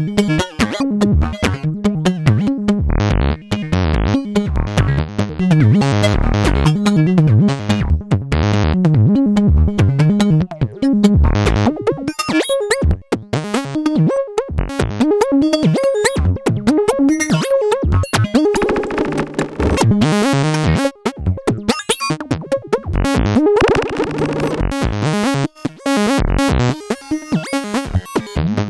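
Eurorack modular synthesizer playing a rhythmic patch: a gated sawtooth wave switched by Make Noise Jumbler's rotation among low-pass and high-pass filters, Mimeophon and Spectraphon, over a gated sub-oscillator bass. Quick short notes throughout, with brighter swelling passages about two-thirds of the way in and again a few seconds later.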